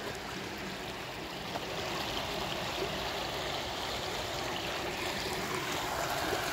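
Sewage water in an open sewer channel flowing and trickling steadily where it is diverted off to a treatment plant.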